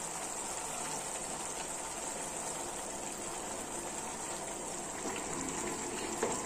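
Steady sizzling and bubbling of spiced gravy in a frying pan as pabda fish are laid into it to cook.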